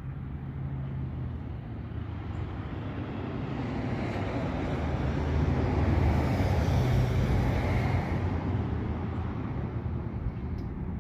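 A motor vehicle passing: a low engine and road rumble that builds gradually to its loudest about six to seven seconds in, then fades.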